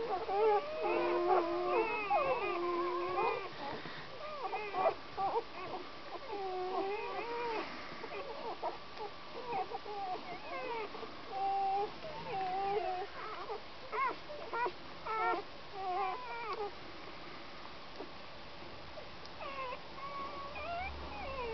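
A litter of very young Old German Herding Dog × Border Collie-mix puppies whimpering and squeaking: many short, high-pitched, wavering calls that overlap thickly for the first few seconds, then come as scattered single squeaks.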